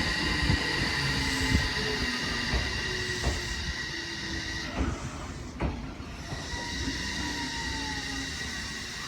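Electric commuter train pulling into a station and slowing, its brakes squealing with steady high tones. The wheels knock over rail joints, with two sharper knocks about five seconds in.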